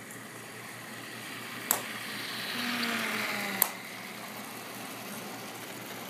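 Battery-powered toy train running on plastic track: a steady mechanical hum with a regular low pulsing, swelling louder for a couple of seconds in the middle, with two sharp clicks about two seconds apart.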